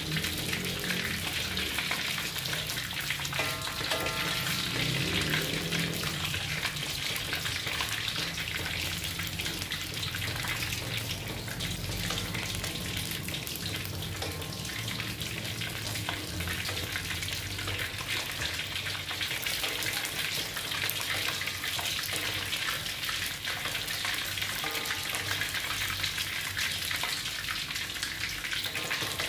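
Pork leg deep-frying in hot oil in a wok: a steady sizzle with dense crackling pops.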